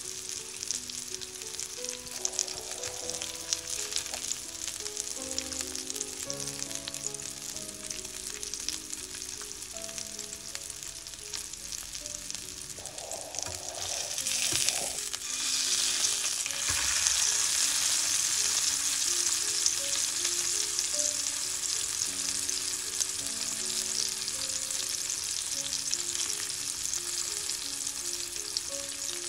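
Wagyu beef steak sizzling in hot fat in a red copper frying pan. About halfway through it is turned over with chopsticks, and the sizzle grows louder as the fresh side meets the pan. Soft background music plays underneath.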